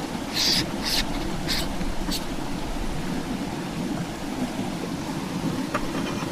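Steady low rushing noise, with a few brief crackles in the first two seconds.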